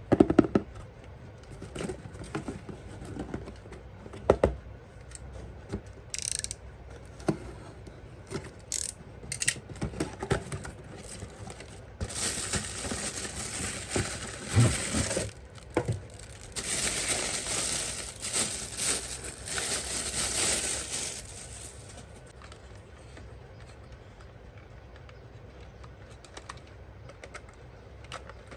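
Toy packaging being handled and opened: scattered clicks and knocks, then two long stretches of rustling and tearing around the middle, tapering off to faint handling noise near the end.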